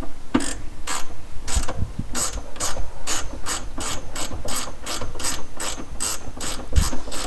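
Steady mechanical clicking, about four even clicks a second.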